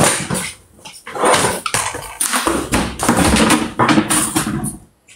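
Several loud, noisy bursts of knocking and rustling as things are moved about and handled close to a phone's microphone.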